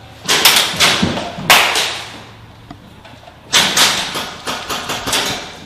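Two bursts of airsoft rifle fire, each a rapid string of sharp cracks lasting about a second and a half, the second starting about three and a half seconds in.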